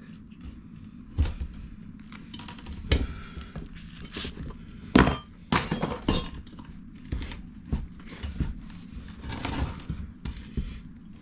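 Scattered knocks and clinks of a dirt bike wheel being worked by hand, with the tire bead pushed over the metal rim. The loudest knocks come about five to six seconds in.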